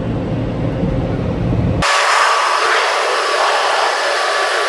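Automatic car-wash air dryer blowers heard from inside the car: a low rumble with a steady hum, then about two seconds in an abrupt change to a loud, steady rush of blowing air.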